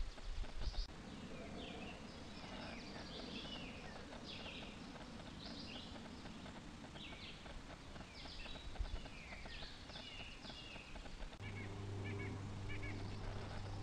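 Songbirds singing outdoors, many short slurred and falling chirping phrases one after another, over a steady low background rumble. A few low thumps sound in the first second, and about eleven seconds in a steady low hum starts.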